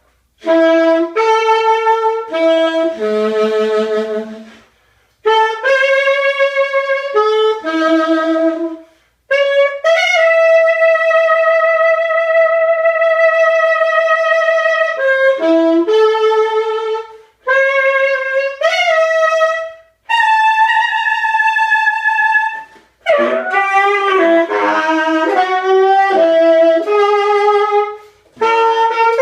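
Solo saxophone playing a free-jazz improvisation in short phrases with pauses between them. About ten seconds in it holds one long note with vibrato, and later it breaks into a rough, growled passage.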